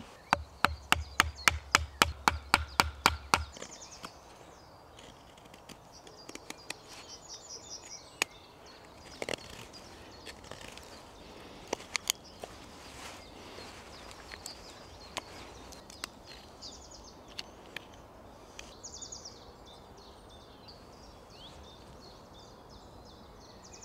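A fixed-blade bushcraft knife carving a hook notch into a green branch. It opens with a quick run of knocks, about four a second, for the first three and a half seconds. After that come faint, scattered cutting scrapes and clicks, with a few short bird chirps.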